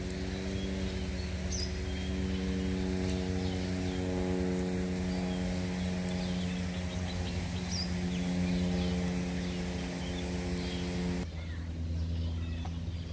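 A steady mechanical hum holding one pitch, with a few short bird chirps over it; the hum cuts off suddenly about eleven seconds in, leaving a low rumble.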